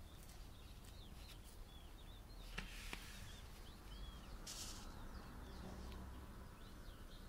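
Faint, short chirps of a house sparrow fledgling, repeated many times, with a single light click about two and a half seconds in.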